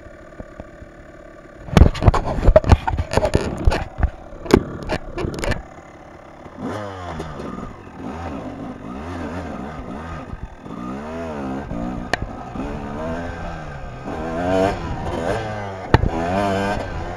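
Kawasaki dirt bike engine idling, then a run of loud knocks and clatter about two to five seconds in. From about six seconds on the engine revs up and down over and over as the bike rides off.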